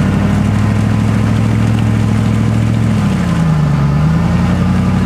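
Off-road vehicle engine running steadily, its pitch dipping briefly about three seconds in and coming back up a second later.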